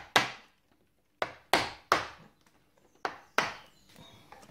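A hammer striking a chisel to cut out a socket back box recess in a plastered wall: about six sharp blows at an uneven pace, some in quick pairs.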